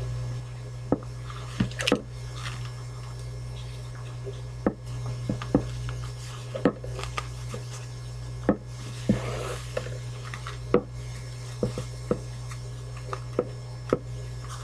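Hands handling fabric over a boot on a wooden table: irregular light knocks and taps, with a stretch of fabric rustling about nine seconds in, over a steady low hum.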